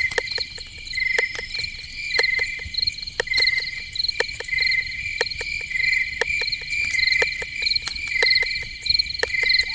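Night chorus of crickets: pulsed chirps repeating about once a second over a steady high trill, with many scattered sharp ticks.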